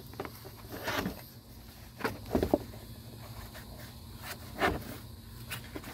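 Two car alternators, one new and one old, being handled with gloved hands: a few short, light knocks and scrapes, scattered through, the loudest near the end.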